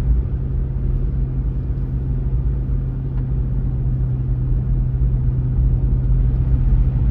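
Steady low rumble of a 2021 Lexus GX460's 4.6-litre V8 and road noise, heard from inside the cabin as the SUV climbs a steep snowy hill under load in drive, with a constant low engine drone. The pull is even, with no sign of wheelspin.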